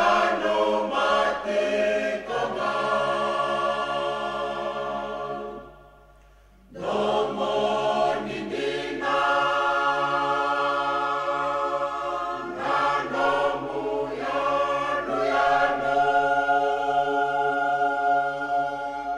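Background choral music: several voices singing held chords, breaking off briefly about six seconds in and then starting again.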